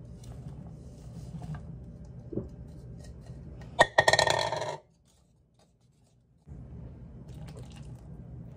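A wooden-handled spoon clattering and scraping against a mixing bowl as batter is stirred, loudest about four seconds in, over a steady low room hum. The sound drops out for a second or two just after.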